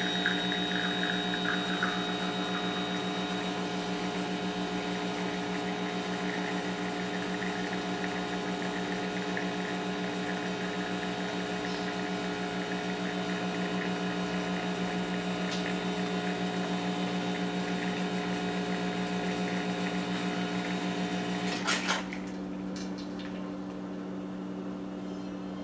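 Bezzera espresso machine's pump humming steadily during a double-shot extraction. About 22 seconds in, the pump shuts off with a brief burst of hiss, and a quieter steady hum is left.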